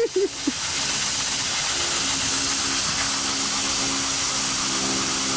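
Refrigerant hissing out of a window air conditioner's opened sealed line, a loud, steady hiss of escaping gas under pressure, which the scrappers take for Freon.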